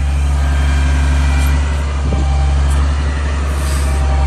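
Bucket truck's diesel engine running steadily, driving the hydraulics while the aerial boom's telescoping section slides in.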